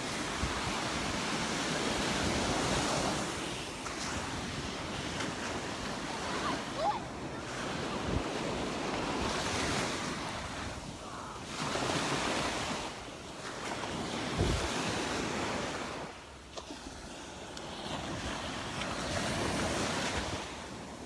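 Gulf of Mexico surf breaking and washing up the beach, swelling and fading every few seconds, with wind buffeting the microphone.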